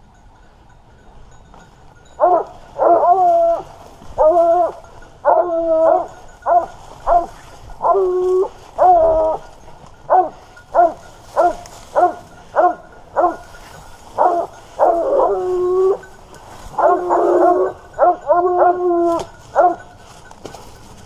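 Grand Bleu de Gascogne hounds baying, a long run of drawn-out bays one after another with several voices overlapping, starting about two seconds in. The baying is the sign of a wild boar held at bay by the hounds.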